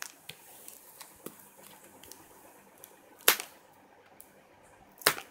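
Hands handling a cardboard phone box: a few light ticks and taps, with two sharp snaps about three and five seconds in.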